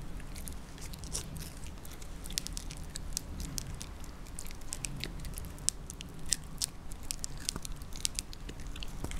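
A small dog gnawing a chew-bone held between its paws: irregular crunching clicks of teeth working at the chew as it tries to break a piece off.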